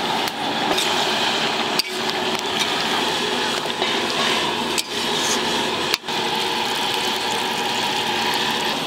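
Prawn curry cooking in a metal wok: a steady sizzle and bubble of the sauce, broken off sharply three times.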